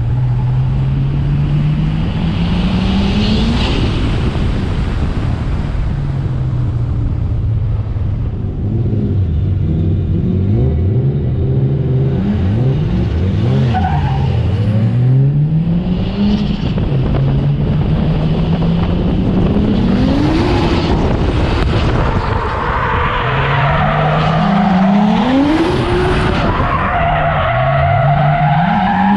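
Drift car's engine heard onboard, revving up in repeated rising sweeps and dropping back as the throttle is worked and gears change. In the last several seconds tyres squeal with a wavering pitch as the cars slide through a corner.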